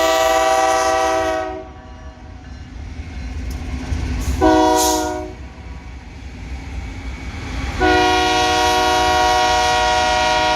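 BNSF freight locomotive air horn sounding over the low rumble of the train. There are three blasts: a long one ending about a second and a half in, a short one near the middle, and a long one from about 8 s that holds on. This long–short–long pattern is the close of a grade-crossing warning.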